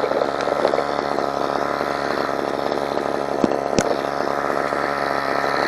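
Kawasaki KTF27A string trimmer's small two-stroke engine running steadily after a choke repair, not yet fine-tuned. Two sharp clicks come a little past the middle.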